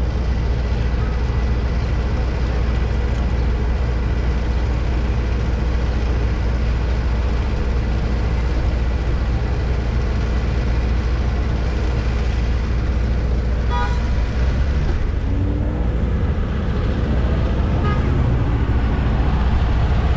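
Steady low rumble of wind and road noise picked up by a camera on a moving bicycle, with a short high ringing tone about two-thirds of the way through.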